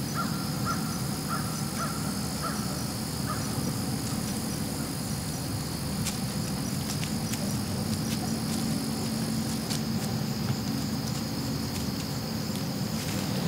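Outdoor insect chorus: a steady high-pitched insect drone with a faint pulsing trill, and a short run of evenly spaced chirps over the first few seconds, over a low steady hum.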